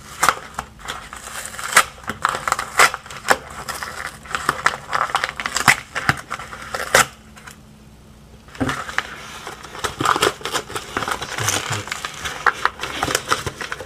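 A paper mailing envelope being torn open by hand: a run of crackling rips and crinkles, with a pause of about a second just past the middle.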